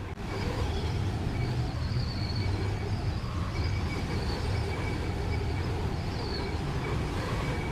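Steady low rumbling noise with an even hiss over it and a faint high steady tone, unchanging throughout.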